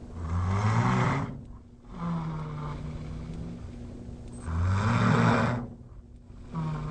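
A person snoring heavily in a steady rhythm. Two loud, rasping snores come on the in-breath, one at the start and one about four and a half seconds later. Each is followed by a softer, steady droning tone on the out-breath.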